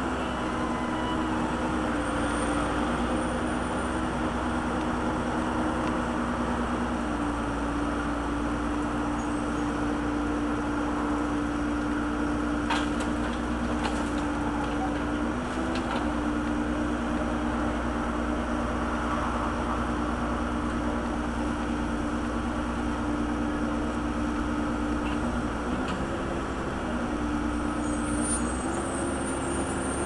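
Case backhoe's diesel engine running steadily under working throttle, its pitch shifting slightly up and down a few times as the hydraulics take load while it digs and swings to dump soil into a truck. A few sharp knocks come about halfway through.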